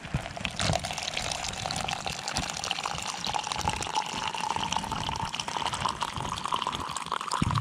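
Coffee poured in a steady stream from a French press mug into a cup, the pitch of the filling sound rising slowly as the cup fills.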